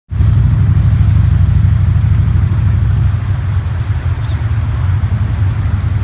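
Wind buffeting the microphone, a loud, uneven low rumble, over the steady rush of the Stanislaus River running high and fast.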